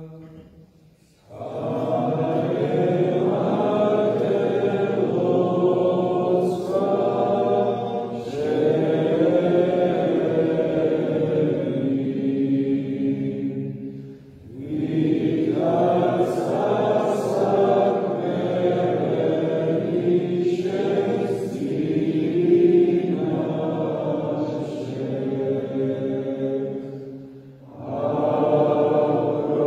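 Orthodox church choir chanting unaccompanied in long held phrases. The chant starts about a second in and breaks off briefly about halfway through and again near the end, each time before the next phrase.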